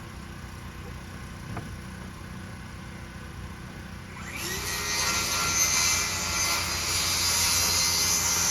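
A power tool winds up about halfway through and runs hard for about five seconds, over a steady low engine hum.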